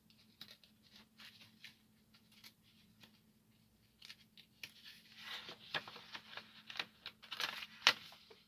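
Handling of a paper instruction booklet: faint rustling and light clicks, growing busier about halfway through, with a sharp click near the end. A faint steady hum runs underneath.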